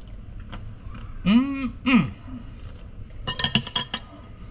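A short two-part vocal sound, then a quick run of sharp metallic clinks, like a utensil tapping on a plate, a little after three seconds in.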